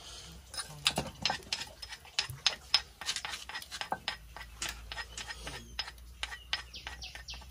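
Wood fire crackling under a clay cooking pot: irregular sharp cracks and clicks, several a second.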